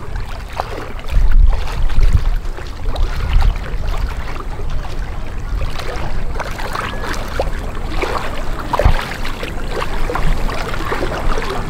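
Wind gusting on the microphone, loudest about a second in, over water washing against shore rocks, with scattered small knocks and clicks.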